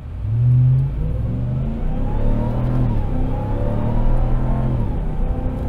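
Ram TRX's supercharged 6.2-litre Hemi V8 accelerating from inside the cab, its pitch climbing, dipping briefly about three seconds in at a gear change, then climbing again.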